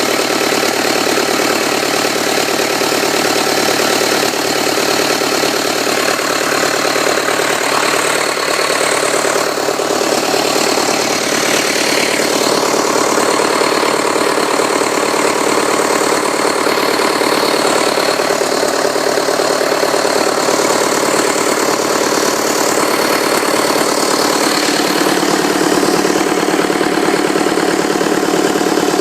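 Freshly rebuilt 2006 Cummins 4.5-litre four-cylinder diesel engine idling steadily, with the typical diesel clatter and a faint high whine.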